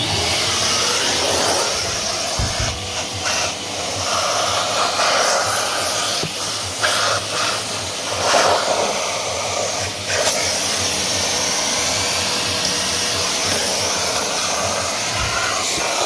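Bort BSS-1220 construction vacuum cleaner switched on and running steadily. Its airflow sound shifts from time to time as the crevice nozzle works along the car's floor carpet, picking up debris.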